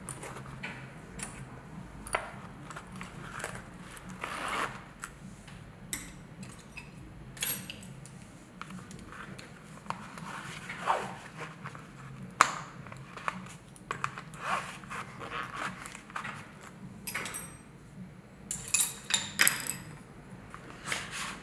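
Hands loading a waxed-canvas tool roll: scattered light clicks, short rustles and scrapes as the zipper pouch is worked, small clips are slid onto the canvas slots and a hera marker is pushed into a pocket. A denser run of clicks and rattles comes near the end.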